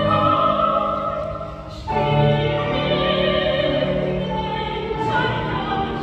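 A woman singing opera live, long held notes with vibrato over instrumental accompaniment; a new phrase starts about two seconds in.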